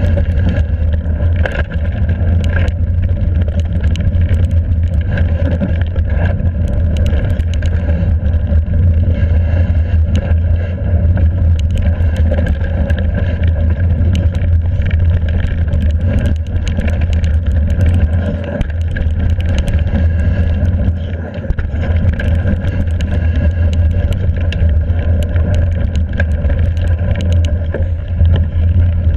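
Hardtail mountain bike running fast down a rough, rocky trail: a continuous heavy rumble from the tyres and wind buffeting the mounted camera's microphone, with constant rattling and clatter from the bike over rocks and roots.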